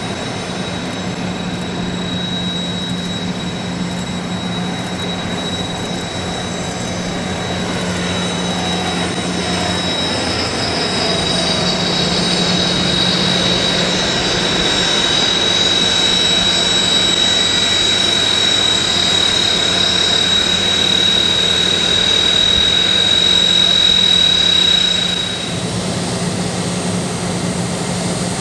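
Turbine-engined aircraft flying past: a steady engine drone with a high whine that slides down in pitch partway through, then holds as the sound grows louder. Near the end the whine stops and the level drops.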